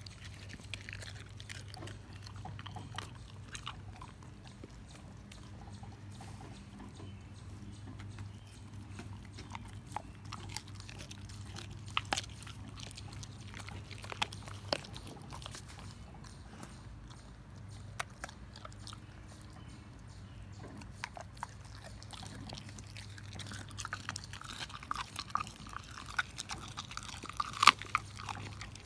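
German Shepherd gnawing a raw beef rib, with irregular crunches and cracks of bone between its teeth. The crunching comes thicker and louder near the end.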